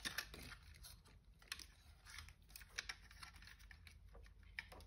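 Faint, scattered light clicks and taps of a small amplifier circuit board and its wires being handled and set into place.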